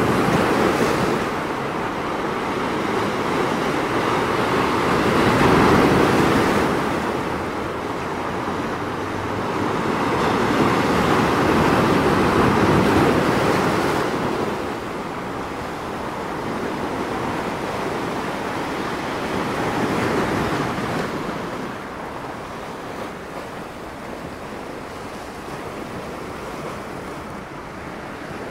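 Sea waves breaking and washing over a rocky shore, swelling and falling away in surges several seconds apart, settling to a lower, steadier wash near the end.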